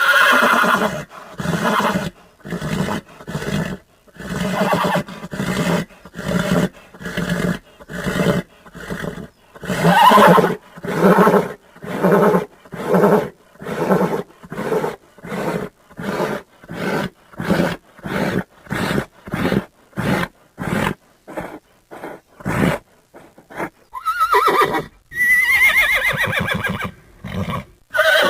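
Horses neighing and whinnying, several pitched calls that rise and fall, near the start, about ten seconds in and again near the end. In between runs a quick series of short repeated pulses, two to three a second.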